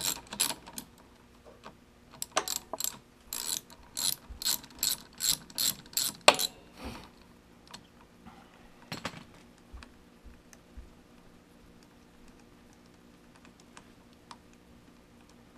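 Hand ratchet with a 5 mm hex bit clicking in quick back-and-forth strokes, about two to three a second, as the loosened clutch pressure-plate bolts on a Suzuki DRZ400S are run out. A sharp clack about six seconds in, then only a few faint clinks of parts being handled.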